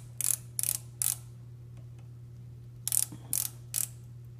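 Ratchet stop of a Mitutoyo digital micrometer clicking as the spindle is closed onto a turned steel test bar: four sharp clicks in the first second, then three more about three seconds in. The clicks show that the ratchet is slipping at its set measuring pressure.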